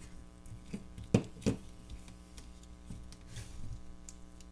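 Hands handling a lithium-ion battery pack's plastic cell holder and its wires: a few light clicks and knocks, the sharpest a little over a second in, and a brief rustle of wires about three seconds in.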